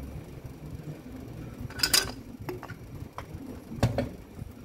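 Metal parts of a Makita HM1306 demolition hammer clinking and knocking together as it is reassembled: a sharp clatter about two seconds in, a few light ticks, then another knock near the end.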